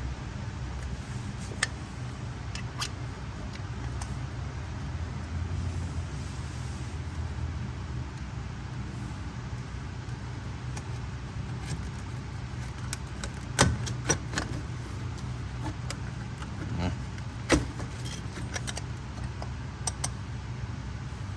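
Scattered sharp metallic clicks and clinks of hand tools and a compression gauge fitting being worked into a spark plug hole, over a steady low hum.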